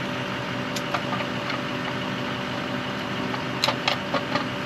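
An engine idling steadily, with a few sharp clicks about a second in and a quick cluster of louder clicks near the end.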